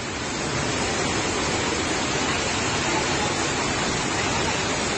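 Fast-flowing floodwater rushing through a street: a steady, even rush of water with no break.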